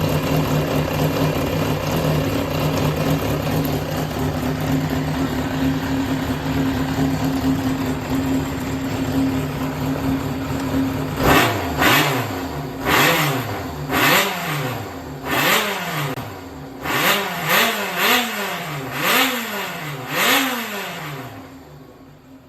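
Yamaha XJR400's air-cooled inline-four engine idling steadily, then blipped about ten times in quick succession, each rev rising and falling, before the revs stop near the end. It runs cleanly, with no abnormal noise, as a healthy engine should.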